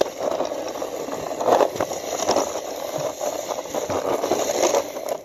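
Plastic toy jeep's wheels rolling over rough concrete as it is pushed along by hand, a continuous rattle and scrape that stops suddenly at the end.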